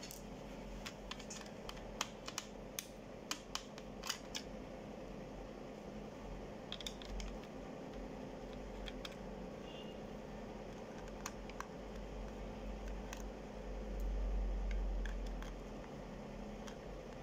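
Sharp clicks and taps of a small screwdriver and fingers working on the opened plastic underside of an HP ProBook 4530 laptop. The clicks come thickest in the first four seconds and are scattered after that, with a low rumble late on.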